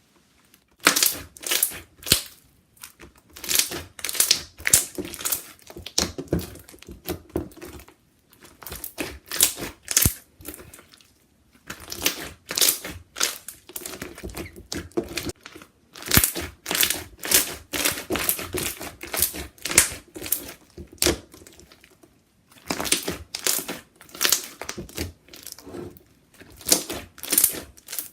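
Glossy, bubbly slime filled with marshmallow foam beads being squeezed and folded by hand, giving runs of small bubble pops and crackles with short pauses between them.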